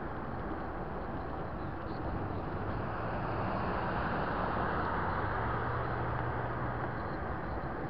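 Traffic noise as a pickup truck passes close alongside: its engine hum and tyre noise swell through the middle seconds and then ease off as it pulls ahead, over steady road and air noise.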